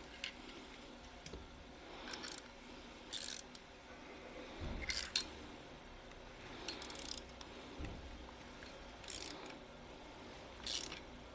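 Bearing puller being worked to draw the rotor bearing off an angle grinder's armature shaft: short metallic clicks and scrapes, about seven of them spaced a second or two apart.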